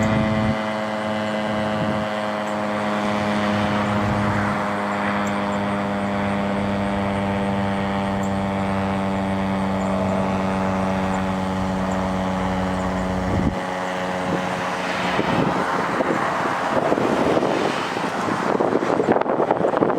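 Federal Signal STH-10 electromechanical outdoor warning siren winding down after its alert, giving a steady multi-note hum that sags very slowly in pitch as the rotor coasts. Its lowest note fades out about two-thirds of the way through, and a rushing noise swells up near the end.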